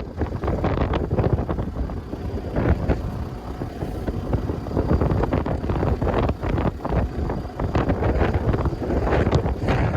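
Strong gusty wind buffeting the microphone, a heavy, rumbling noise that rises and falls with the gusts.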